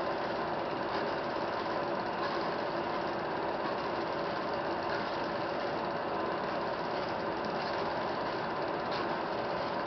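Film projector running steadily, a continuous mechanical whir with a faint hum and an occasional light click.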